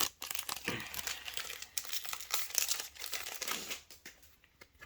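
Yu-Gi-Oh! booster pack wrapper being torn open and crinkled by hand, a dense crackling that fades out about four seconds in.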